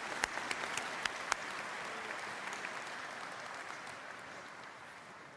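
Audience applauding, with a few loud single claps in the first second or so, then the applause dying away toward the end.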